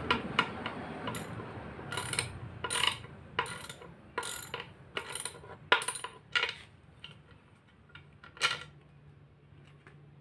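Sharp metallic clinks from the Suzuki Multicab transmission as its aluminium case is rocked by hand against the exposed gears and shafts. There are about a dozen clinks, roughly one or two a second, then a pause and one more loud clink near the end.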